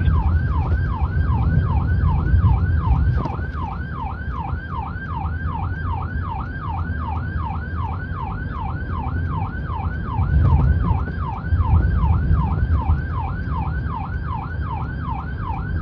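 Police escort car's electronic siren, heard from inside the cabin, in a fast repeating yelp: each sweep drops in pitch, about three a second. Under it the car's engine and road noise rumble, swelling briefly about ten seconds in.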